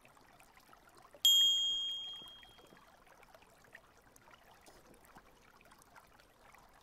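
A single bright chime sound effect rings about a second in and fades away over a second and a half, marking the rainbow trout ticked off on screen. Under it is the faint trickle of shallow river water.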